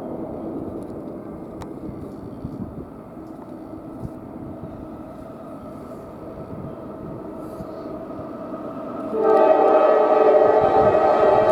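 Diesel freight locomotive approaching with a steady low rumble, then its multi-chime air horn sounds loudly about nine seconds in, a chord of several steady tones held on.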